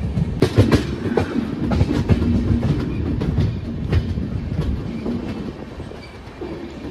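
Jan Shatabdi express train running, its wheels clattering over rail joints with a steady rumble and irregular sharp clicks, heard aboard the train. The clatter eases off a little near the end.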